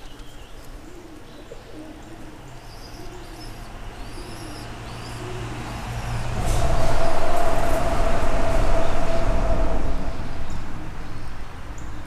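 A vehicle crossing the bridge overhead: a low rumble and tyre noise that build over a few seconds, stay loud for about four seconds with a steady whine, then fade away. A dove coos softly in the first half, before the vehicle noise swells.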